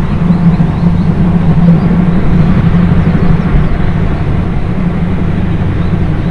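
C57 180 steam locomotive running with its seven-coach train: a loud, steady rumble with a low hum.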